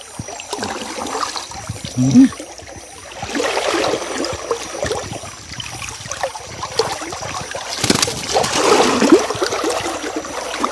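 River water splashing and trickling around a person wading, in uneven bursts that swell about four seconds in and again near nine seconds.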